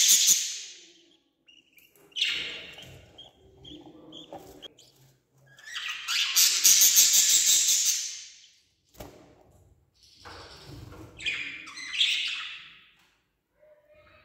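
Budgerigar nestlings giving harsh, rapidly pulsed begging calls as they are fed. The calls come in four bursts, the longest lasting about two seconds midway.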